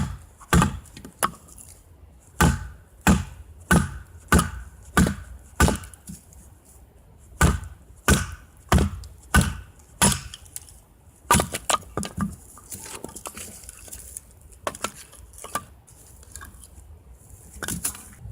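Firewood being chopped by hand: a run of sharp strikes at about one and a half a second, a short pause about six seconds in, then more strikes that thin out into lighter, scattered knocks and cracks.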